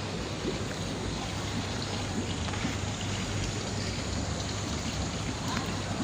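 Pond water running steadily, with a low steady hum underneath.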